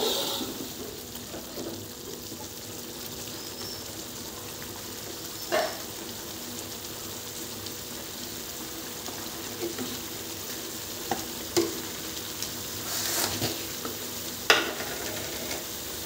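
Chili spice paste with lemongrass and lime leaves frying in oil in a wok: a steady sizzle as the paste cooks until fragrant, with a spatula stirring at the start and a few sharp ticks later.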